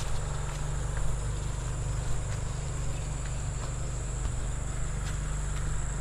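Steady high-pitched chirring of insects, over a steady low rumble, with a few faint scattered clicks.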